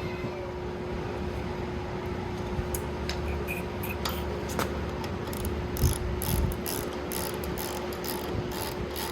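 Ratchet wrench clicking as a suspension bolt on a go-kart's front control arm is turned, the clicks sparse at first and then coming quickly and evenly, about three a second, from about halfway through.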